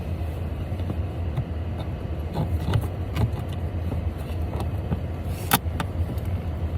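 Scattered clicks and rattles of an OBD-II scanner cable's plastic connector being handled and pushed into a car's diagnostic port, the sharpest click about five and a half seconds in, over a steady low hum.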